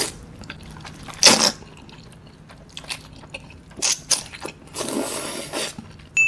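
A person slurping jjajangmyeon noodles, several hissing slurps about a second or more apart, with wet chewing and small mouth clicks between them.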